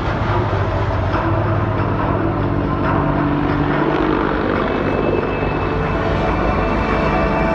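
Military aircraft engines running steadily, a loud, constant drone with steady low tones underneath.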